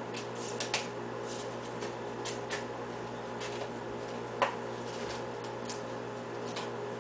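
Steady low hum with several steady tones, with scattered faint ticks and light clicks over it and one sharper click about four and a half seconds in.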